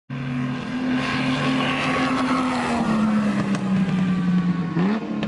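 Race car engine running with a steady note that sinks slowly in pitch, then rises sharply near the end as it revs up.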